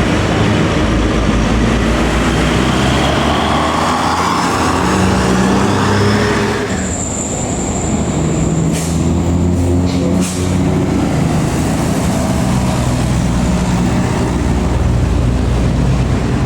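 Heavy diesel tour bus engine running loudly as buses pass. Near the middle there is a thin high whine for about two seconds, then two brief hisses of air.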